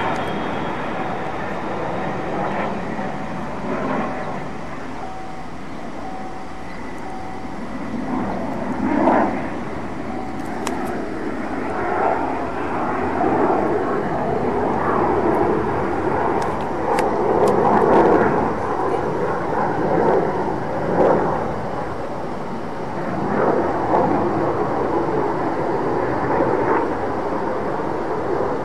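Four-engine Boeing 747 Shuttle Carrier Aircraft, carrying Space Shuttle Endeavour on its back, flying overhead: a steady jet rumble with slow swells in loudness.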